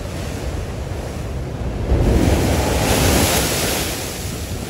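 Heavy surf breaking against a boulder revetment and seawall, steady and loud. A big wave crashes about two seconds in, and its wash hisses across the flooded road before easing. Wind buffets the microphone.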